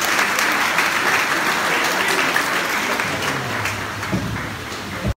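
Congregation applauding, a dense patter of many hands clapping that eases slightly after a few seconds and cuts off suddenly near the end.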